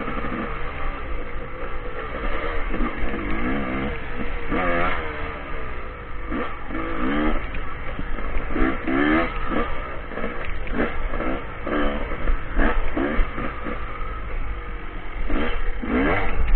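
Dirt bike engine revving up and down over and over as it is ridden along a trail, with a low rumble underneath. It gets louder near the end.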